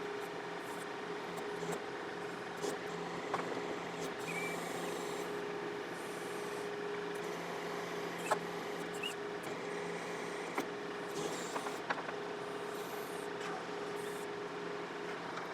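John Deere 4052R tractor's diesel engine running steadily at low idle while the 485A backhoe is worked. Now and then there is a brief hiss, along with scattered knocks and clicks; the sharpest knock comes about eight seconds in.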